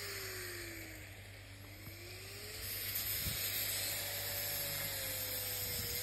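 Angle grinder cutting through the steel dome of an exhaust back box, a steady hiss with the motor's pitch sagging under the cut and then climbing again. It gets louder about three seconds in.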